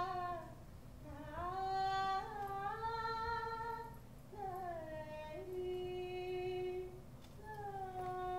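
A woman's voice singing a slow, wordless melody in long held notes, sliding smoothly between pitches, phrase after phrase with short breaks between them.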